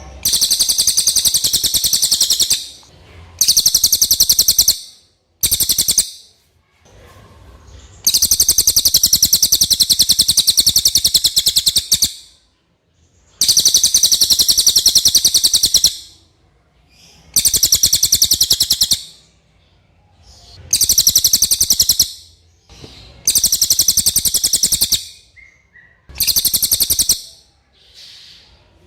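A cililin songbird singing: repeated bursts of a very fast, high-pitched trill, each lasting about one to four seconds, with short pauses between them.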